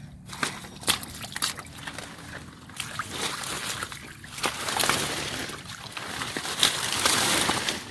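Water sloshing and splashing in irregular bursts as hands grope through shallow water for fish, growing louder about five seconds in and again near the end.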